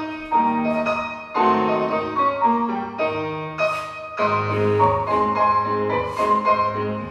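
Recorded piano music accompanying a ballet exercise, with a steady run of notes and chords.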